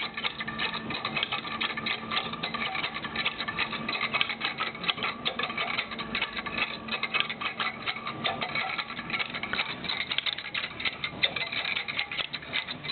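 A homemade rotary light distributor running: a motor-driven arm spins and its wiper strips brush past a ring of bolt contacts, giving a rapid, continuous clicking and scraping over a faint steady motor hum.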